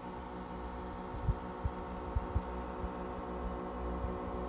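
Bait tank's battery-powered aerator pump humming steadily, with a few soft low knocks.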